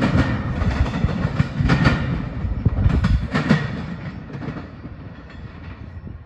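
Tail end of a CSX intermodal freight train rolling away: wheels clacking on the track, with a few louder clacks in the first half. The rumble fades after about four seconds as the train recedes.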